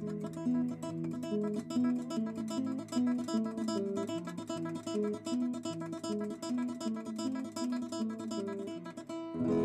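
Acoustic guitar music: a melody of quickly plucked notes moving over a held bass note, with a new chord struck near the end.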